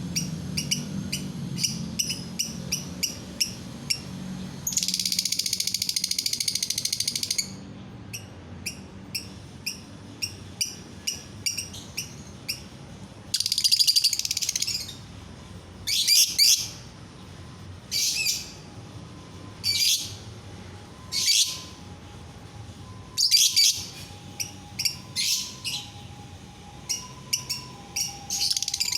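Lovebird singing: strings of short, high chirps broken by two long, fast trills, about five and fourteen seconds in, and loud shrill calls every second or two after that.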